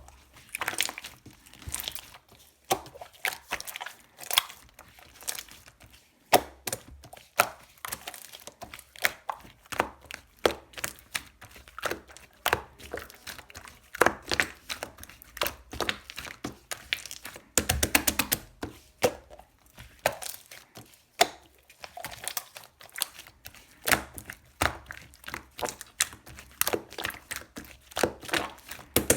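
Shaving-foam slime being squeezed and pressed by hand: a dense, irregular run of sticky clicks and small air-bubble pops.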